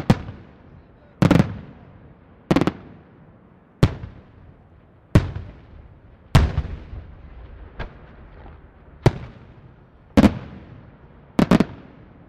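Aerial firework shells bursting in a steady sequence, about ten sharp bangs roughly one every second and a quarter, each followed by a rolling echo that fades before the next.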